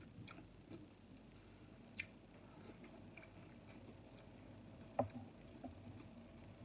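Quiet eating sounds: soft chewing of hotpot noodles with a few short clicks and ticks, the loudest about five seconds in.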